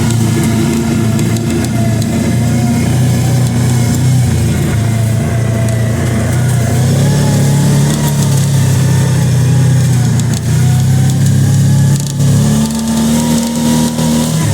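Kawasaki Teryx 800 side-by-side's V-twin engine running while driving along a trail, its pitch rising and falling with the throttle.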